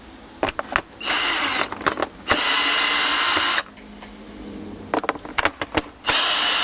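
Power drill-driver with a hex bit backing screws out of a pressure washer's plastic housing: three steady motor runs, the middle one the longest, with clicks and knocks of the bit and plastic case in between.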